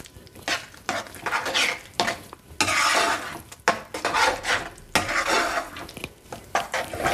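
A spoon stirring and scraping a thick carrot and fox nut pudding in a cooking pan, in irregular strokes a few times a second, some longer sweeps among them, with a faint sizzle from the still-hot pan.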